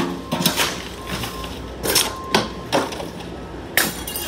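Irregular knocks and clatters, about half a dozen in four seconds, the loudest right at the start.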